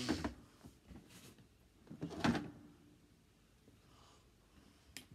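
Close handling noise: a red plastic toy piece is moved about and set down on a toy wrestling ring, making two short scraping rustles about two seconds apart and a faint click near the end.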